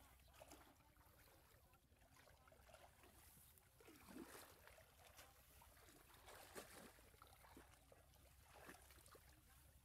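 Faint splashing and sloshing of shallow muddy water as waders drag a fishing net through it, with a few louder splashes now and then.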